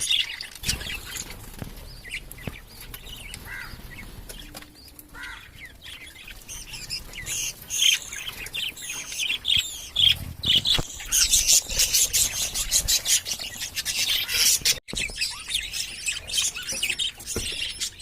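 Pet budgies chirping and chattering in quick high twitters, thin at first and much busier in the second half.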